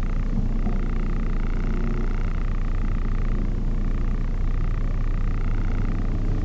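Steady low rumble of a car idling in stopped traffic, heard from inside the cabin, with a faint wavering higher hum over it.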